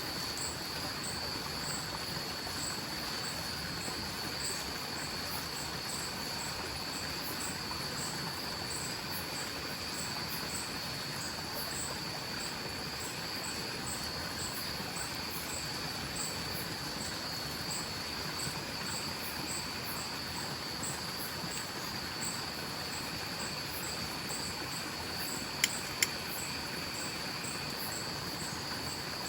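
Night chorus of forest insects: a steady high-pitched trill with a regular higher ticking, over the even hiss of a flowing stream. Two sharp cracks come close together near the end.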